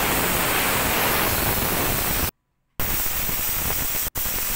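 Aluminium pressure cooker whistling: a loud, steady hiss of steam escaping from the weight, which shows the cooker has reached pressure. The hiss cuts off abruptly for about half a second a little over two seconds in, and drops out again for a moment near the end.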